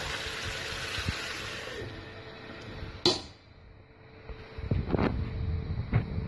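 Marinated pork chops sizzling in hot oil in a frying pan, the sizzle dying out about two seconds in. A sharp click comes about three seconds in, and from about four and a half seconds low rumbling handling noise with a few knocks as the phone is moved about.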